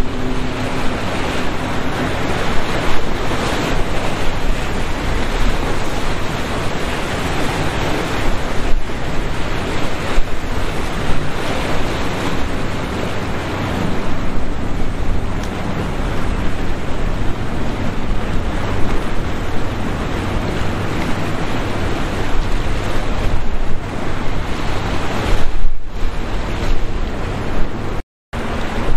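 Loud, steady rush of wind on the microphone mixed with waves and surf. The sound cuts out completely for a split second near the end.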